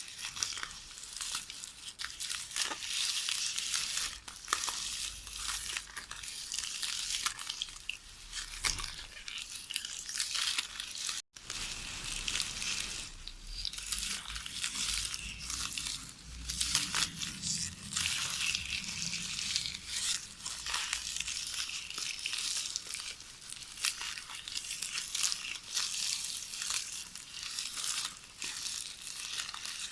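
Magnetic tape pulled from a VHS cassette rustling and crackling as it is knitted by hand, a continuous run of fine crinkles and small clicks, with a split-second gap about eleven seconds in.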